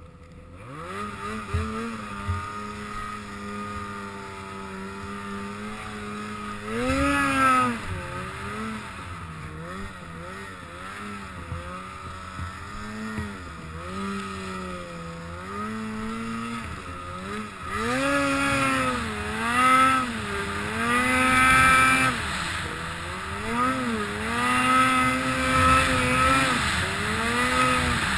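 2009 Ski-Doo Summit 800's two-stroke twin engine running as the sled rides through snow, its pitch rising and falling with the throttle. The revs climb in the first second, surge about a quarter of the way in, and swing up and down over and over through the last third.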